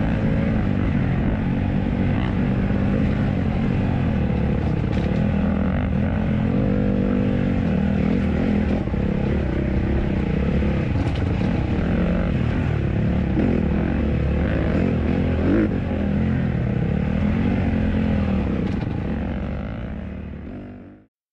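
Honda CRF150RB dirt bike's four-stroke single-cylinder engine, heard on board while riding, its pitch rising and falling with the throttle, with a few sharp ticks along the way. The sound fades out over the last two seconds.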